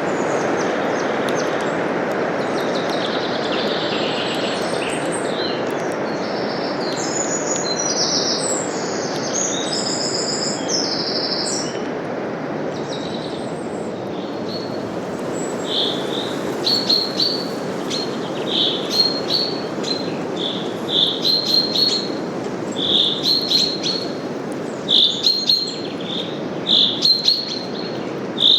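Steady rush of wind through forest leaves with songbirds singing over it: a run of varied high notes through the first ten seconds or so, then short chirps repeated about once a second, getting louder toward the end.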